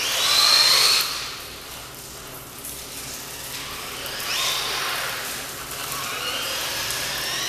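Electric whine of a 2S brushless RC truck motor as the truck accelerates and eases off: a loud rising whine in the first second, then two more rising whines about four and six seconds in.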